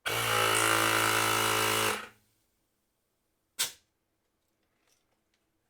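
Parkside PAKT 20-Li A1 20V cordless compressor's motor and piston pump running with a steady buzzing drone for about two seconds, then cutting off and spinning down. A single short sharp sound follows a second and a half later.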